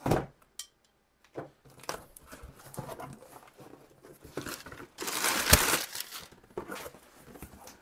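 A thump as the cardboard box is set down, then cardboard flaps and brown kraft packing paper rustling and crinkling as the box is opened and unpacked; the loudest crumpling comes about five seconds in, when the paper is pulled out.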